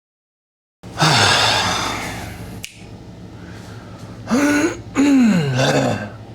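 A person's wordless vocal sounds: a loud breathy sigh about a second in, a sharp click, then a few short voiced sounds with pitch gliding up and down, near the end.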